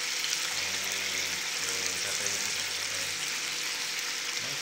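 Chicken satay skewers sizzling on a round grill pan over a gas stove flame: a steady frying hiss.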